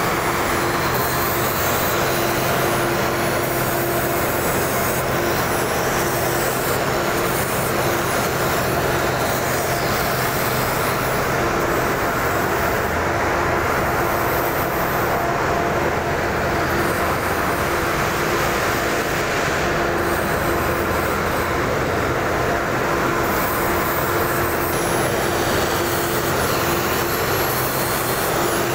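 Electric angle grinder with a sanding disc running steadily against the bronze liner of a kiln support roller bearing, dressing the bearing surface: a steady motor whine over the continuous grind of abrasive on metal.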